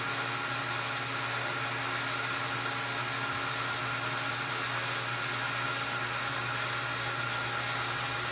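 Belt-driven metal lathe running with the spindle turning at a steady speed, giving an even motor-and-belt whir with a few constant tones.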